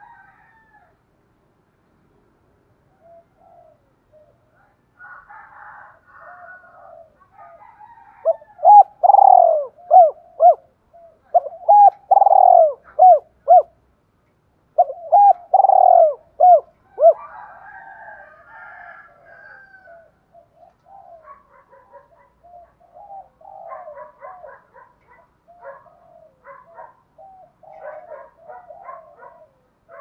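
Spotted dove cooing close by: three loud phrases of low coos, each note falling in pitch, each phrase about two seconds long, in the middle. Fainter bird calls come before and after.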